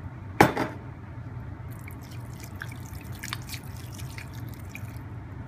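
Lime juice pouring from a bottle into a stainless steel bowl of diced raw chicken and onion, trickling and dripping. A sharp knock about half a second in.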